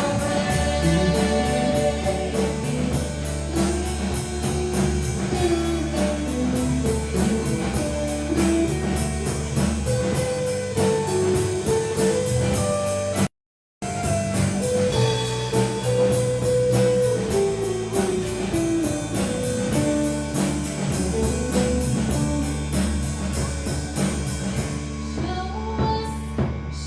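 Rock music with singing, guitar and drums. The sound cuts out completely for a moment about halfway through.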